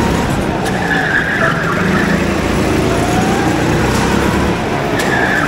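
Go-kart engine running hard with a steady loud rumble, tyres squealing briefly about a second in and again near the end as the kart slides through corners.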